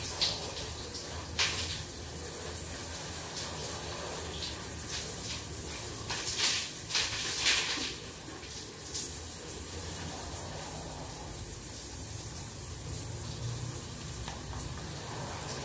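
Shower spray running steadily as shampoo is rinsed out of long hair, with a few brief louder splashes.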